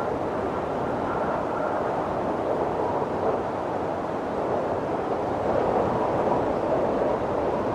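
Steady wind rushing, with a faint whistle coming and going.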